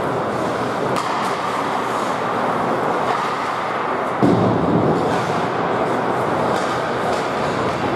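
Ice hockey rink ambience during play: a steady wash of noise with a few sharp clacks, and a heavy thud about four seconds in.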